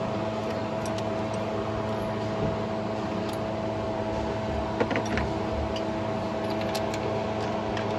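A steady machine hum that holds one pitch, with a few faint light clicks about five and seven seconds in.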